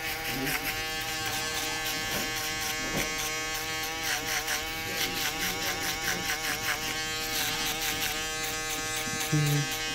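Electric foil shaver buzzing steadily as it is lightly grazed along the bottom of a skin fade to erase the last of the line and blend it into the skin. Its pitch wobbles for a few seconds in the middle.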